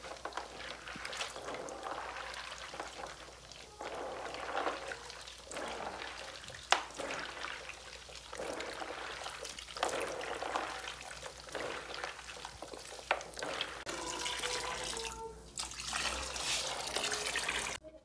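Hands squeezing and kneading açaí berries in water in a plastic basin to rub the pulp off the seeds: uneven wet sloshing and squelching, with a few sharp clicks scattered through.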